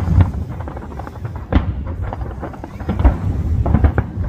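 Aerial fireworks going off in a rapid, irregular barrage: deep booms about a second and a half apart among many sharper cracks.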